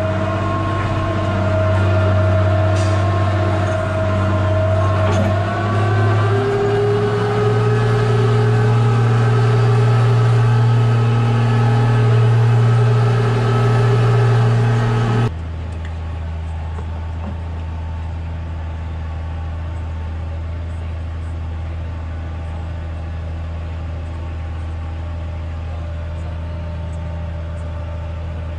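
Tractor engine running, heard from inside the cab, its pitch shifting a little about five seconds in. About halfway through, the sound cuts abruptly to a quieter, steady engine drone.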